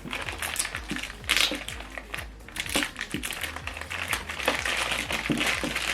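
Rustling and light clicking of cables and plastic being handled, with many small irregular clicks.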